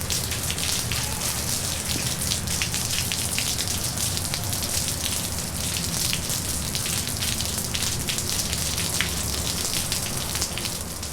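Heavy pouring rain from a 1960s vinyl sound-effects recording: a dense, steady hiss of falling rain, peppered with sharp drop ticks, over a continuous low rumble of traffic.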